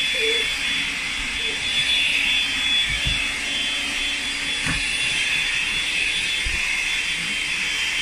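Cordless stick vacuum cleaner running steadily, a hiss with a high motor whine, as its floor head is pushed over carpet. A few dull knocks come through, about three seconds in, near the middle and again a couple of seconds later.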